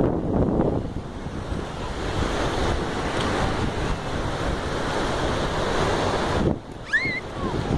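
Small waves of shallow surf washing in and churning around the shallows, with wind buffeting the microphone. A short high squeak glides up and down about seven seconds in.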